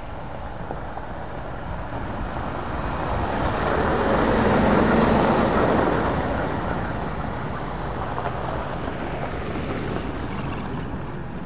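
British Army MAN SV logistics truck's diesel engine and tyres as it drives past on a gravel track: the sound grows, is loudest about five seconds in as the truck passes close, then fades as it drives away.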